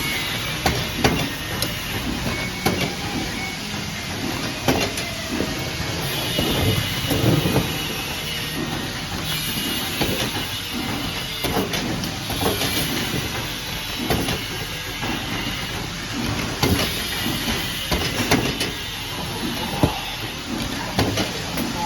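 Wire mesh welding machine running: a steady mechanical hiss and clatter, with frequent irregular sharp clanks.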